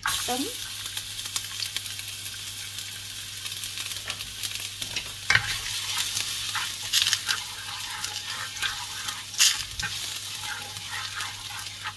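Minced garlic hitting hot oil in a non-stick frying pan and sizzling at once, while a wooden spatula stirs and scrapes it around the pan, with a few sharper taps of the spatula along the way.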